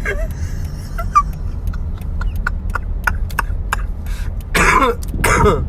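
Steady low rumble of a vehicle idling in stopped traffic, with faint scattered clicks, and two short bursts of a person's voice near the end.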